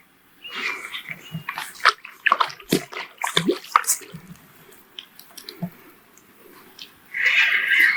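Water splashing and sloshing as a hooked fish thrashes at the surface while it is brought to the landing net, with a quick run of sharp splashes in the first half. A short, dense hissing burst comes near the end.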